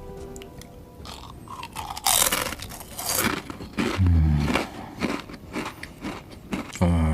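Close-miked crunching and chewing of food, loudest about two to three seconds in, with smaller crunches after. Two short low hums come at about four seconds and again at the end.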